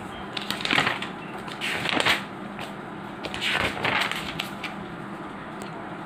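Paper pages of a spiral-bound notebook being turned and handled, rustling in three bursts.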